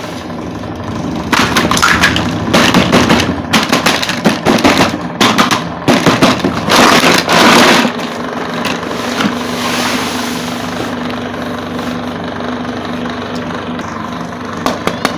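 Rustling, crackling and clattering handling noises, dense for the first half and then sparser over a steady low hum.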